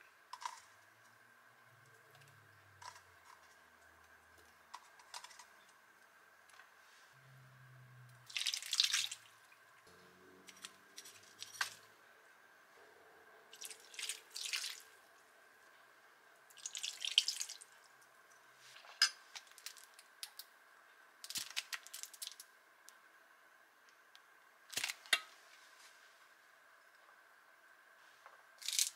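Liquid poured into a frying pan of raw chicken wings in several short splashing pours, sake from a bottle and soy sauce from a ladle, with a few small clicks between them and a faint steady hum underneath. No sizzling.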